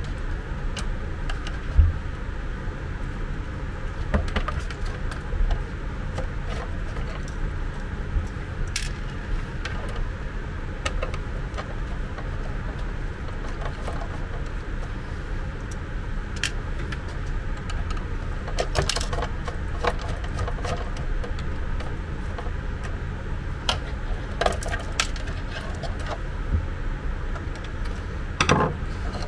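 Scattered clicks, taps and light rattles of a screwdriver, screws and plastic housing parts being handled while a portable suction aspirator is taken apart, over a steady low hum. The sharpest clicks come about two seconds in and near the end.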